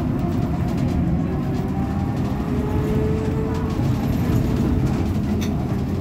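Caio Millenium BRT trolleybus on a Scania K270UB chassis standing still with a steady low hum. A fainter tone rises slowly in pitch over a few seconds, and there is one short click near the end.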